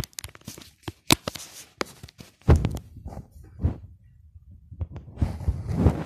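Handling noise from a phone camera moving close to a wire birdcage: a run of sharp clicks and knocks, with heavier rubbing thuds about two and a half seconds in and again near the end.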